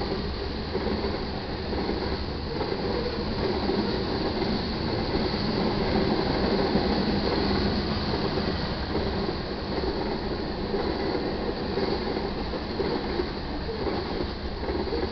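Freight cars of a manifest train rolling past a grade crossing: steel wheels running on the rails in a steady noise that swells slightly in the middle.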